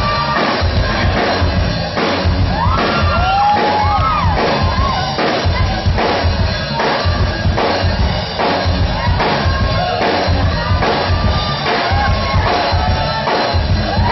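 Live rock band playing loud with a steady beat on a Tama drum kit and a heavy bass line. Audience voices whoop and shout over the music.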